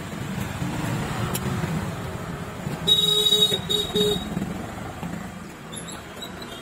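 A vehicle horn beeps three times in quick succession, one long beep then two short ones, over steady traffic noise. A knife knocks faintly on a wooden chopping block a couple of times before the horn.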